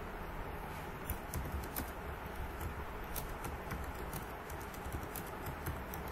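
Typing on a computer keyboard: a run of quick, irregular key clicks over a steady background hiss.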